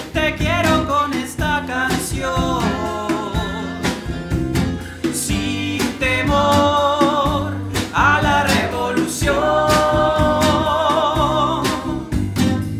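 Folk band song: a lead voice sings with vibrato over guitar, tiple, bass and drums, holding long notes about six seconds in and again from about nine seconds.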